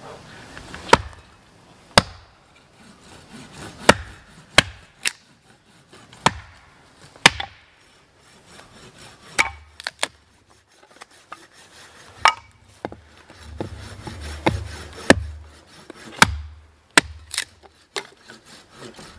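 Firewood being chopped into kindling on a wooden stump: a run of sharp wooden whacks at an uneven pace, about one every second, some followed by a dull thud of wood falling or settling.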